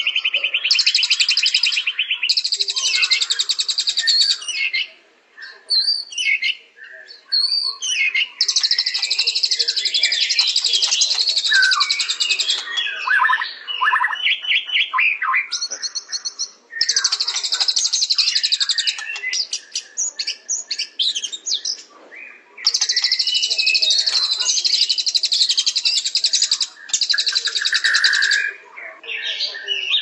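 A bird calling: runs of fast, buzzy, rattling trills a few seconds long, alternating with shorter chirps and brief pauses.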